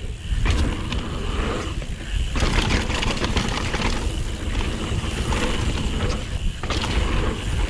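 Mountain bike riding fast down a dirt trail: tyres rolling over rough ground with the bike clattering and rattling over bumps, and wind buffeting the action camera's microphone in a steady low rumble.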